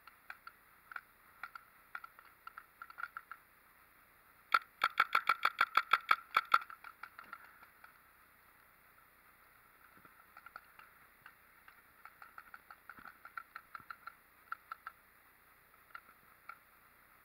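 Paintball markers firing: scattered fainter pops across the field, and about four seconds in a loud, rapid string of roughly a dozen shots in two seconds.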